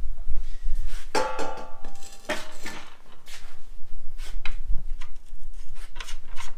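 Metal car parts clanking and ringing as they are handled and set down: a few sharp knocks, the loudest about a second in with a ringing tail.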